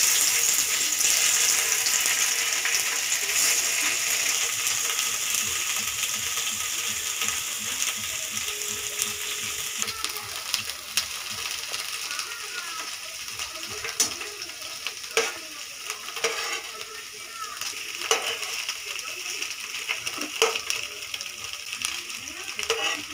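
Paneer cubes sizzling as they fry in hot oil in a kadai, the sizzle strongest at first and fading. From about ten seconds in, a slotted metal spatula turns the cubes, with several sharp clicks against the pan.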